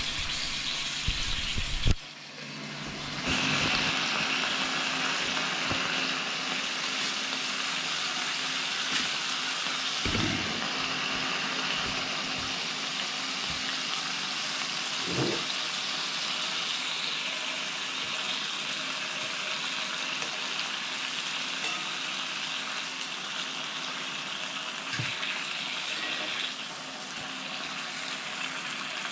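Bacon sizzling steadily in a non-stick frying pan over a portable butane camping stove, with a few soft knocks of the pan and tongs. The sizzle dips briefly about two seconds in, then carries on evenly.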